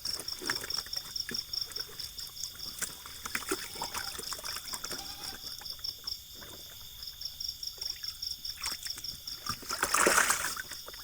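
Insects chirping steadily in rapid, even pulses over small water splashes and trickling, with a louder splash about ten seconds in, likely the newly released catfish moving in the pond.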